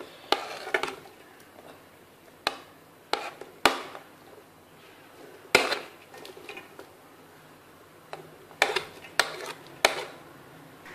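A metal spoon scraping and tapping on a plate and the rim of a metal pot as chopped green chillies are pushed off into the pot: a dozen or so irregular clinks and short scrapes with quiet gaps between them.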